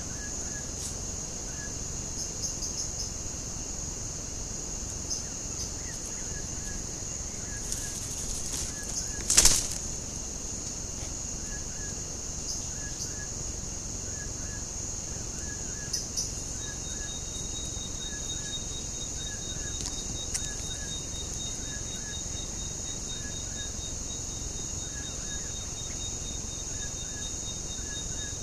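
Rainforest ambience: a steady high-pitched drone, with a small two-note chirp repeating about once a second and a single loud knock about a third of the way through.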